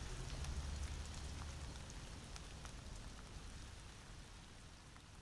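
Rain falling, with scattered drop ticks over a steady hiss and a low rumble that dies away about two seconds in. The whole sound fades out gradually.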